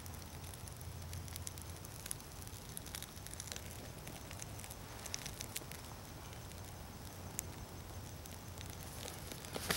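Small fire crackling in a freshly lit tinder bundle made from a bird's nest, with scattered sharp pops at irregular times.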